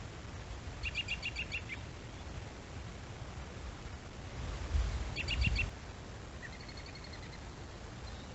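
A small bird calling outdoors: two quick runs of about six short, high chirps, about a second and about five seconds in, then a fainter trill near the end, over a low rumble.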